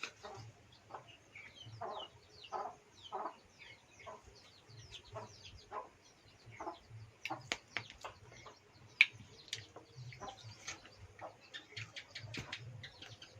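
Chickens clucking in short repeated calls, with small birds chirping higher up. A few sharp clicks come about two-thirds of the way through.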